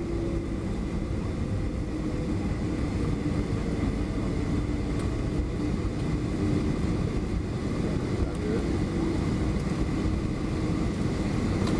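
Steady cabin noise of a Boeing 757-300 rolling slowly on the ground just after landing: an even low rumble with a faint steady whine above it.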